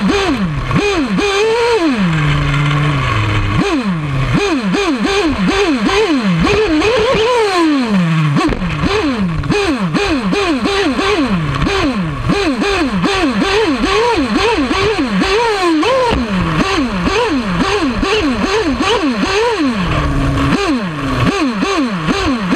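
Nitro RC car's small glow engine revving up and down over and over, about two rises and falls a second, as the throttle is worked while driving. It is heard close up from a camera mounted on the car just behind the engine.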